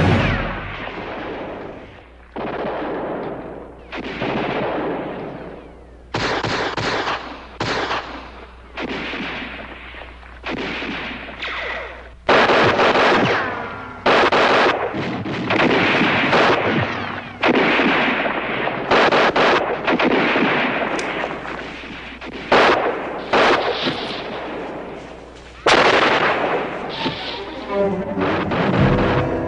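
Gunfire in a firefight: loud gunshots at irregular intervals, some single and some in quick bursts, each followed by a long echoing tail.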